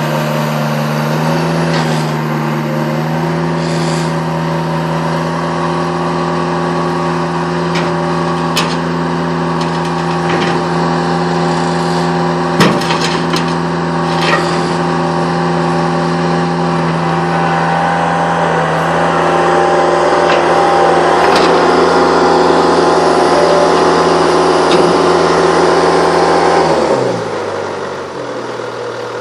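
Bobcat 863 skid steer loader's diesel engine running steadily while the machine is operated, with occasional knocks and clanks. It gets louder for a stretch in the second half, then winds down to a lower idle near the end.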